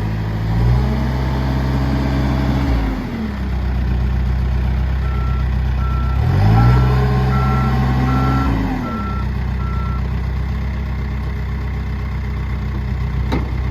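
Case 580 Super M backhoe's turbo diesel engine running, revving up and settling back down twice. In the middle its reversing alarm beeps about eight times, evenly spaced.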